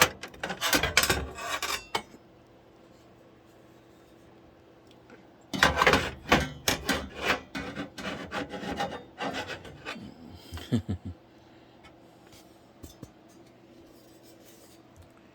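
A part of a full-tower PC case being pushed and worked out by hand: two bouts of rapid scraping, rubbing and knocking, the first at the very start and the second about five and a half seconds in, followed by a few faint clicks.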